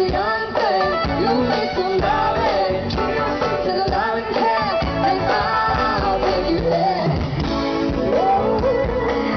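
Music: a song with a singing voice over guitar and a steady backing.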